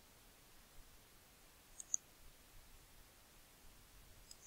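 Computer mouse clicking: a quick pair of clicks about two seconds in and another pair near the end, over near-silent room tone.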